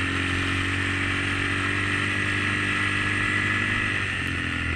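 Dirt bike engine running steadily while riding through deep powder snow, its note dipping slightly near the end.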